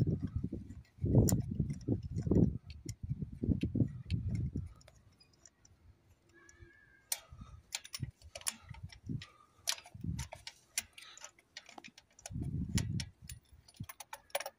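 Wind buffeting the microphone for the first few seconds and again briefly near the end. In between comes a run of light, irregular metallic clicks as a ratchet and spark plug socket work the plug loose in its well in the cylinder head.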